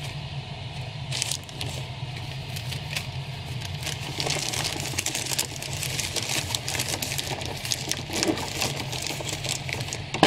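Clear plastic bags crinkling and rustling as they are handled, with dense crackling from about four seconds in. A steady low hum runs underneath.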